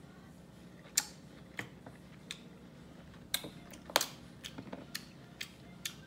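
A series of sharp clicks and taps, about nine in six seconds, from a plastic hot-sauce bottle being handled. The loudest comes about four seconds in as the bottle is set down on the woven tabletop.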